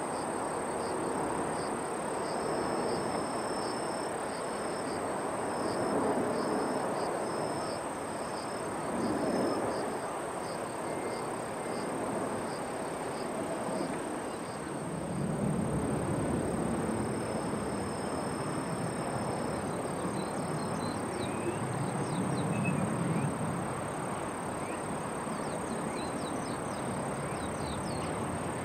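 Outdoor ambience: insects chirping in a steady rhythm over a continuous high buzz and a broad rushing background, with two low rumbling swells in the second half.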